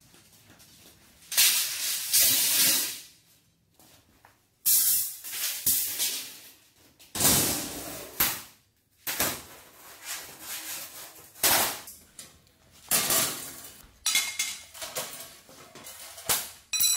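Stainless steel sheets, slotted grill grates and bars being set down and handled on a tile floor, clattering and clanking again and again at irregular intervals. Near the end a piece rings briefly.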